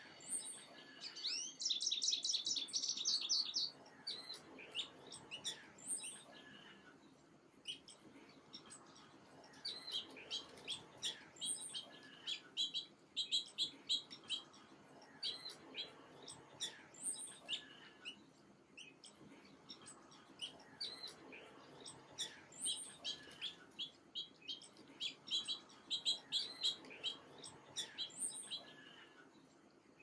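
Small songbirds chirping: a loud, fast trill about two seconds in, then runs of short, high chirps around the middle and again near the end.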